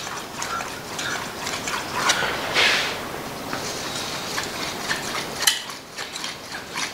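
A kitchen knife blade being drawn back and forth over a slate sharpening stone, a run of soft scraping strokes. This is the final honing stage on the fine slate, smoothing burrs off the edge.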